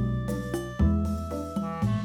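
Background music in a light jazz style: a bass line stepping to a new note about once a second under a melody.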